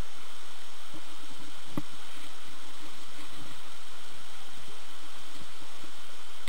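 Steady outdoor hiss with no clear source, with one faint knock about two seconds in.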